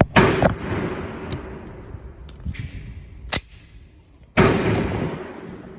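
Glock 19 9 mm pistol being fired: sharp shots near the start, a short crack about three seconds in and a loud shot about four and a half seconds in, each of the big shots trailing off in a long echo.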